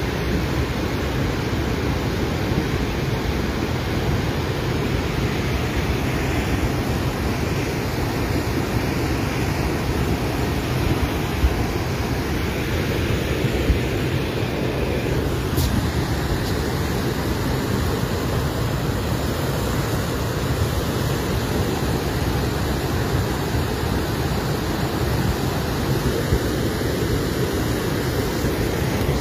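Muddy flash-flood torrent rushing over a stony riverbed: a steady, deep rush of water that does not let up.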